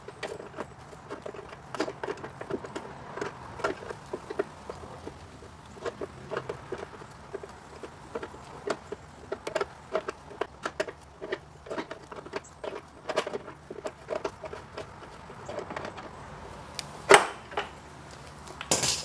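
A 5/8 wrench and pliers clicking and clanking irregularly against a seized steel brake-line fitting as it is worked loose, with one much louder metal knock near the end.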